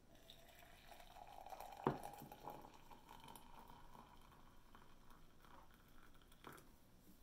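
Hot water poured from a glass electric kettle into a ceramic mug: a faint trickling fill that rises slightly in pitch as the mug fills. A single sharp knock comes about two seconds in, and a smaller one near the end.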